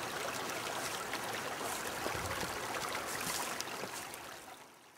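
Small stream running over stones: a steady rush of flowing water that fades out near the end.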